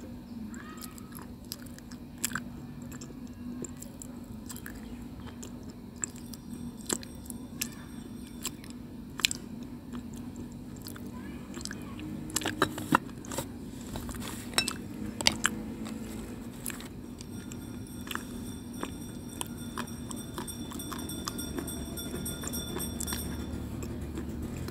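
Close-up chewing of a piece of white slate stone: irregular sharp crunches and bites, coming thicker about halfway through, over a steady low hum.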